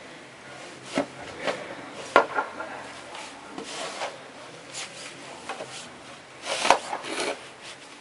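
A snow shovel scraping and digging into deep, packed snow. It makes an irregular run of rough scrapes and knocks, sharpest about two seconds in and again near the end.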